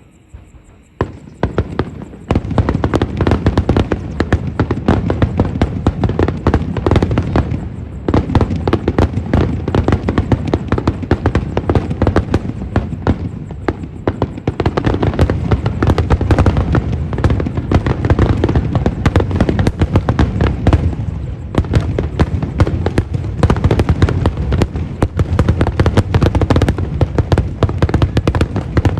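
Fireworks display firing a starmine, a rapid-fire barrage of shells: dense, continuous bangs and crackling with deep booms, starting about a second in.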